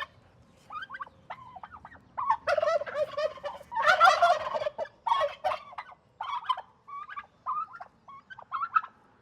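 Wild turkey gobbling: two long, rattling gobbles about two and a half and four seconds in, among shorter calls that thin out towards the end.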